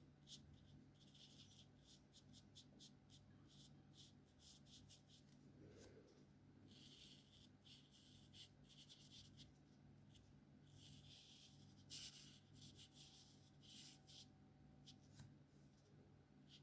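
Alcohol-based felt-tip markers stroking across paper, faint: runs of quick short strokes alternating with longer colouring passes.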